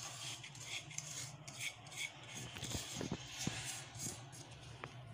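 Powdered sugar being tipped and scraped out of a plastic bowl into a steel mixing bowl: soft rasping and rubbing with scattered light taps and a few soft knocks, over a faint steady hum.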